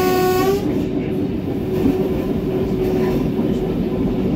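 Old diesel railbus running along the track, heard from the driver's cab, with the tail of its horn blast ending about half a second in; after that the steady engine and running noise carries on.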